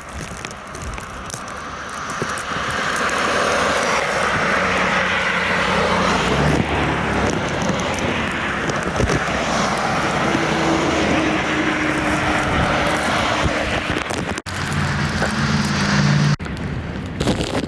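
Steady rushing noise with a low engine-like hum underneath, as of a running vehicle in wind. The sound breaks off abruptly twice near the end.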